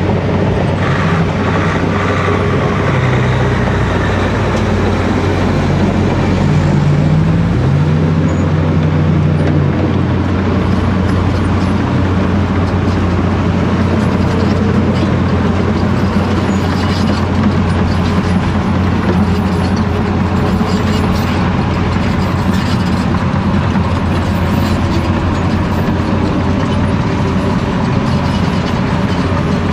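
Heavy diesel machinery running steadily: a Bell B40D articulated dump truck driving on the haul road, then a large hydraulic excavator working beside it as it loads the truck's bed. A higher engine note comes in briefly a few seconds in.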